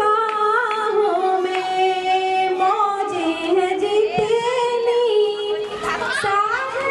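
A woman singing long held notes that waver and slide in pitch.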